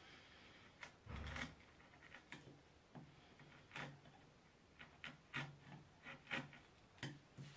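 Bench chisel paring waste from a hinge recess in wood by hand: a series of short, faint scraping strokes of steel across the grain, the longest and loudest about a second in.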